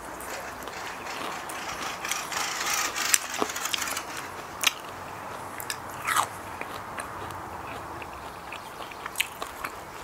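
Close-up eating: crunching and chewing crispy fried salmon belly, with sharp crunchy clicks every second or so and a denser crackling stretch about two to three seconds in.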